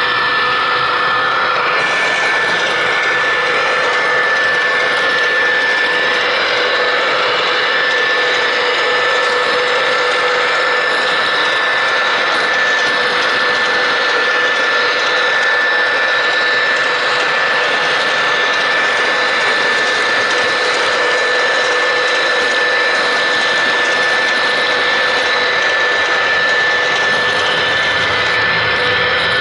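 MTH ES44AC model locomotive running steadily along the track, heard from on board the train: a constant whine with two held tones over an even rushing noise.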